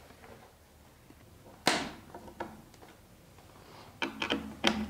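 A furniture shelf panel knocks once against the cabinet's side panel about 1.7 s in as it is fitted onto the pins. Near the end comes a short run of clicks and scrapes from a hand screwdriver turning a minifix cam-lock fitting to tighten it.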